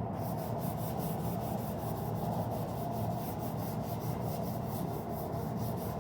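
Hand sanding primer on a motorcycle fender with 180-grit paper wrapped on a soft sanding block: quick, rhythmic back-and-forth strokes, about five a second.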